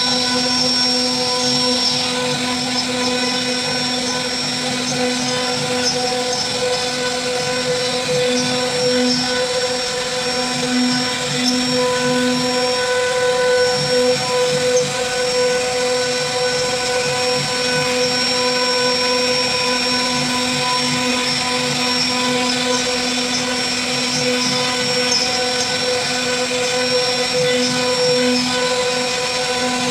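CNC wood router spindle running steadily with a whine as its carving bit cuts relief detail into a wooden panel, over a continuous hiss of cutting. The low part of the whine wavers now and then.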